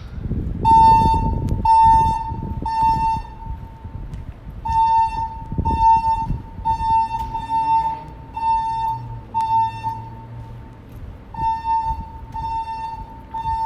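Fire alarm sounders giving the evacuation tone after the spoken message: a shrill tone of about 900 Hz pulsed about half a second on, half a second off, in groups of three with a short pause between groups.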